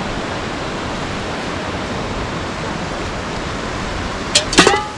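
Water poured from a metal pot onto campfire embers to douse them, with a steady hiss and splash. A brief loud clatter near the end.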